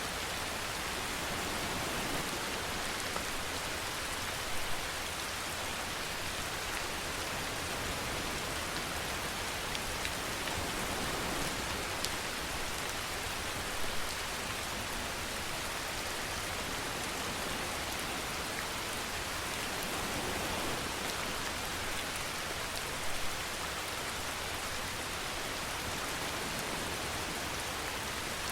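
Steady rain falling, an even hiss of drops on a surface, with a few brief louder drop hits now and then.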